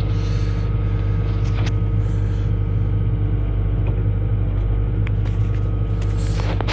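Excavator's diesel engine running at a steady idle, with a few light clicks over it.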